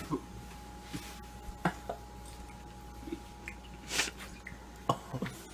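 Chewing and small mouth noises as someone eats a soggy omelette, scattered clicks and squishes, with a short louder burst of noise about four seconds in. A faint steady hum sits underneath.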